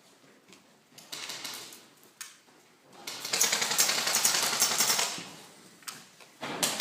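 Airsoft gun firing a rapid burst of about two seconds, preceded by a couple of single sharp clicks.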